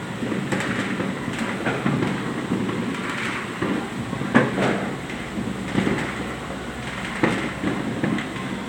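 New Year fireworks and firecrackers going off, irregular sharp pops and bangs every second or so over a steady rumbling haze. The loudest bang comes about four and a half seconds in.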